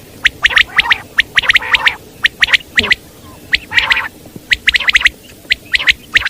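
Common quail calling: short, sharp notes repeated in quick groups of two to four, with a couple of longer, harsher calls in between.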